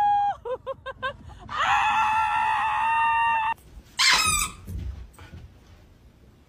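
Dachshund howling: a drawn-out howl, a few short yips, then one long held howl lasting about two seconds that sags slightly in pitch. About four seconds in comes a single sharp smack.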